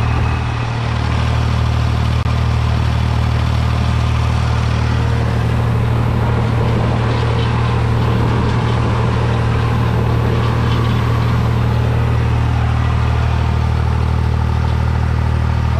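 Farm tractor engine running steadily while pulling a hay tedder through the field, a constant loud drone.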